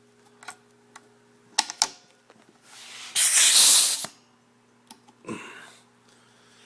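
Clicks of an air hose quick-connect coupler being worked, then a loud hiss of compressed air escaping for about a second and a half.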